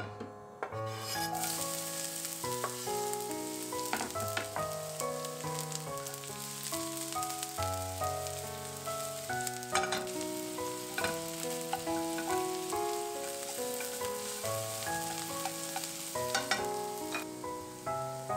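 Sliced onions frying in brown butter in a stainless steel pan: a steady sizzle that starts suddenly about a second in, with scattered clicks of stirring. Background music plays throughout.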